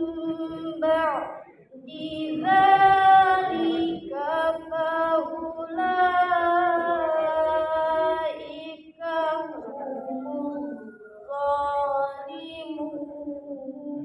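Female reciter chanting the Qur'an from memory in a slow, melodic style: long held notes that bend and waver in pitch, in phrases separated by brief breaths.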